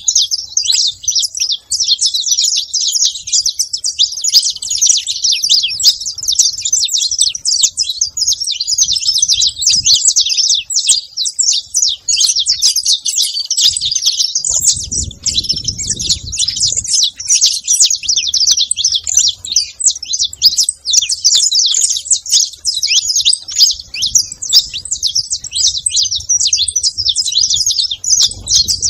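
A feeding flock of saffron finches chirping constantly: many overlapping high, quick calls with no pause. A brief low rustle comes about halfway through.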